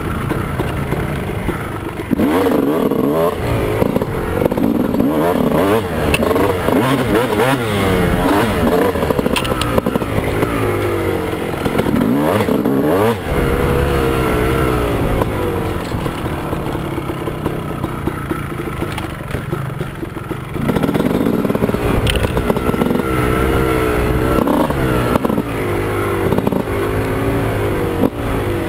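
2001 Honda CR250's single-cylinder two-stroke engine, fitted with a Steahly 10 oz flywheel weight, revving up and down again and again as the bike is ridden along a tight woods trail. The note eases off to a lower, steadier pitch for a few seconds past the middle, then climbs again.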